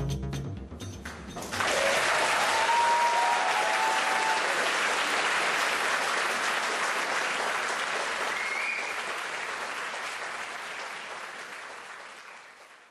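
Audience applauding as the music ends: the last beats die away and the applause starts about a second and a half in, with a few calls rising over it, then gradually fades out toward the end.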